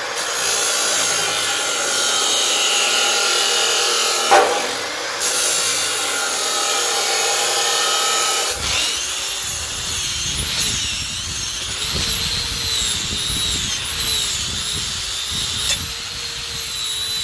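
DeWalt abrasive chop saw running and cutting through 1/8-inch steel angle iron, a steady high whine, with a brief sharp clack about four seconds in. About eight and a half seconds in it gives way to a handheld angle grinder scouring rust off the cut angle pieces, its pitch wavering as the load changes.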